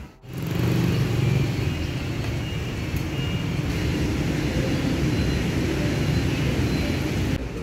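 Street traffic running steadily: the low rumble of passing engines, starting abruptly just after the opening moment.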